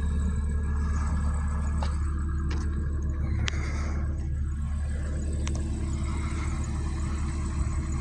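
Takeuchi TB290 excavator's diesel engine running steadily, a low drone, with a few faint ticks over it.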